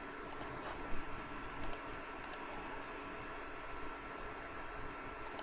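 A few faint, scattered clicks of a computer mouse over steady low room hiss.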